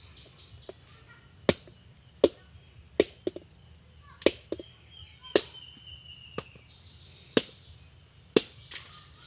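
Machete chopping at nipa palm fruits that have gone hard: about nine sharp strikes roughly a second apart, a few of them lighter.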